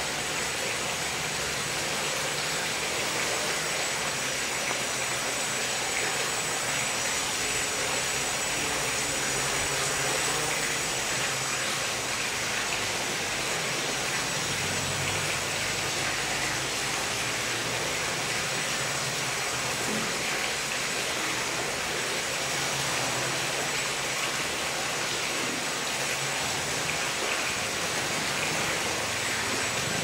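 Small quadcopter's electric motors and propellers whirring steadily in flight: a continuous airy rush with a thin high whine on top.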